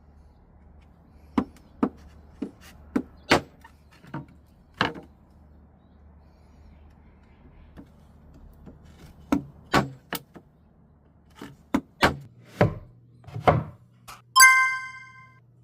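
Wooden joint pieces knocking and tapping together as they are fitted, a string of sharp, irregular knocks with pauses between them. A short, bright ringing tone sounds near the end.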